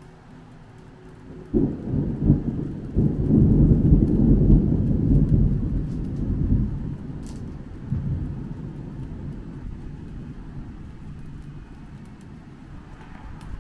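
Thunder: a sudden crack about a second and a half in, then a long, low, rolling rumble that swells again a moment later and slowly fades away.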